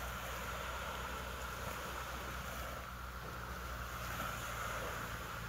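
Longtail boat engine running steadily at a low, even pitch, under a hiss of wind and surf.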